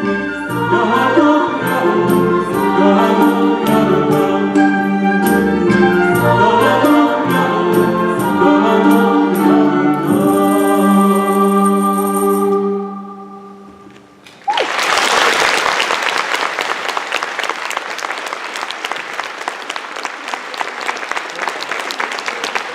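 Symphony orchestra and choir playing the closing bars of a song, ending on a held chord that dies away. A moment later an audience starts applauding suddenly and keeps clapping.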